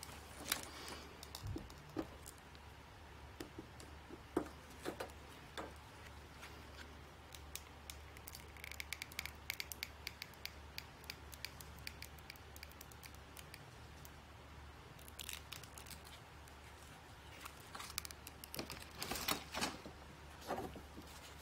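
Foil sealant pouch crinkling and crackling as a gloved hand squeezes it to pipe out a bead of sealant, with scattered small clicks and a few louder handling rustles, over a low steady hum.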